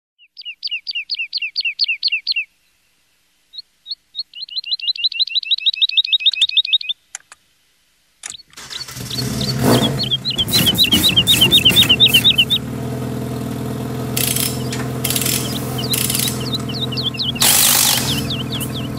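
Songbird trills of rapid repeated notes, two runs with a pause between, then a few clicks and an engine starting about eight seconds in. The engine keeps running steadily while the bird trills go on over it.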